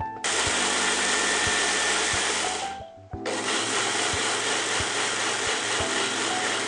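Electric kitchen mixer-grinder grinding soaked rice and dried red chillies coarsely. It runs for about two and a half seconds, stops briefly, then starts again and runs on.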